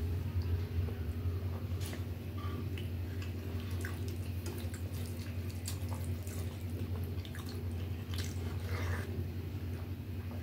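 Fingers squishing and mixing rice soaked in sambar on a steel plate, with scattered small wet clicks and smacks, over a steady low hum.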